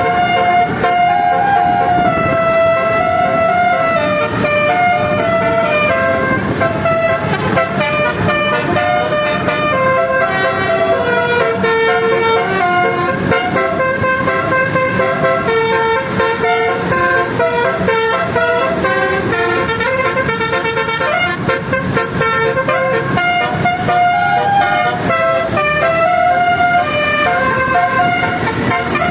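Indonesian bus "telolet basuri" musical horn playing a tune, one held note after another in a continuous melody, over the rumble of the vehicle's engine and road noise.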